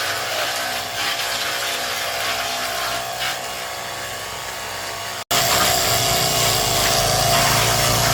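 A hand-held power tool working with a rough, scraping sound; after a sudden dropout about five seconds in, a louder, steadier running sound with a low hum takes over.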